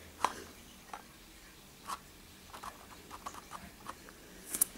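Paintbrush dabbing wet glitter paint onto a plastic RC car body shell: a scattering of small, soft taps and sticky clicks, the loudest near the end.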